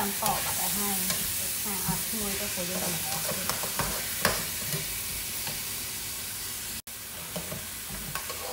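Noodles sizzling in a nonstick frying pan while a slotted spatula stirs and scrapes them, with a steady hiss and occasional sharp clicks of the spatula against the pan.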